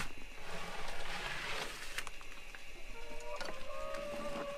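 Plastic scoop scraping chicken manure along a coop's droppings board, with a few clicks of the scoop. A thin steady tone is held for nearly two seconds in the second half.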